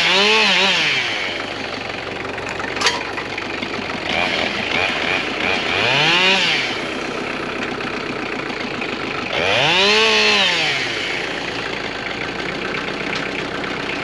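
Husqvarna 572XP two-stroke chainsaw blipped at high revs, dropping to idle about a second in, then revved up and let back down to idle twice, around six and ten seconds in. A single sharp click at about three seconds.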